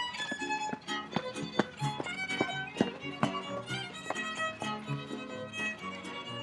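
Music: a violin playing a melody over strummed string chords and plucked bass notes in a steady rhythm.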